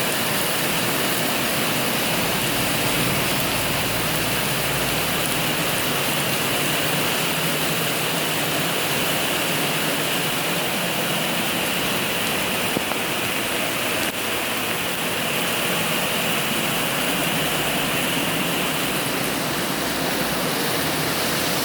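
Steady rain falling, an even hiss of water without a break.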